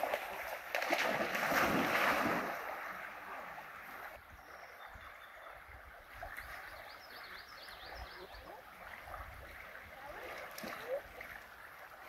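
Golden retriever wading and swimming in a flowing creek: water splashing and sloshing over the steady run of the stream, loudest for the first few seconds and then softer.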